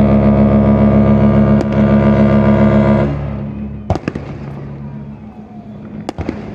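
Cruise ship Ovation of the Seas sounding a long blast on its horn, a deep steady multi-tone chord, as a departure signal; the blast cuts off about three seconds in and its low tones hang on and fade for another couple of seconds. Sharp firework bangs crack during and after the blast.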